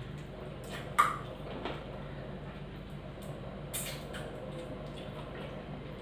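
Quiet sounds of eating by hand: fingers working rice on a plate, with one sharp click about a second in and a few fainter ticks, over a steady low hum.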